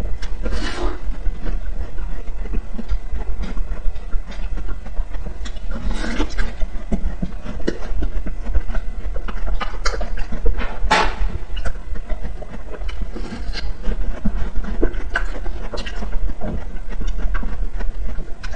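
Close-miked eating of a frozen ice cream bar: crunching bites into its coating about a second in, around six seconds and around eleven seconds, with chewing and wet mouth clicks in between. A steady low hum runs underneath.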